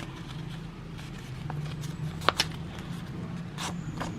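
Scissors cutting thick old-book paper: a few sharp snips, the loudest a little past halfway with a brief metallic ring, over a steady low hum.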